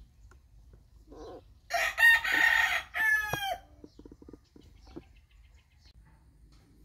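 A rooster crowing once, a call of nearly two seconds that ends in a falling tail; a few faint clicks follow.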